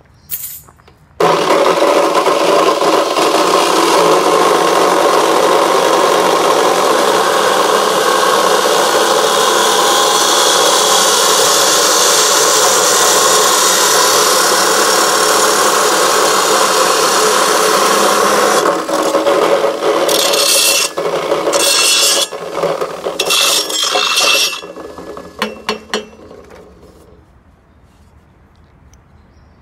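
Abrasive cut-off (chop) saw grinding through steel. It starts about a second in and runs steadily for about 17 seconds, then comes and goes in short spurts before stopping and winding down near the end.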